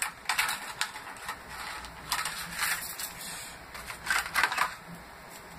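Stiff plastic packaging of a fishing lure crackling and crinkling as it is handled and pried open, in three bursts of crackles with sharp clicks.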